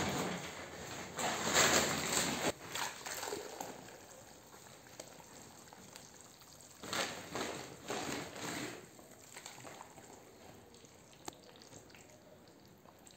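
Hand mixing gypsum plaster powder into water in a bucket, a wet sloshing and stirring, with short louder sloshing bursts about seven and eight seconds in. A louder rough rushing noise fills the first two seconds or so.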